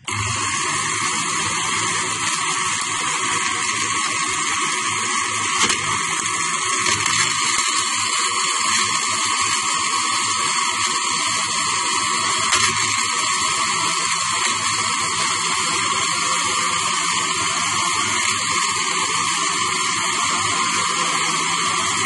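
Electric mixer grinder running steadily, its jar grinding roasted chickpeas and almonds into powder. It starts abruptly and holds one even whir.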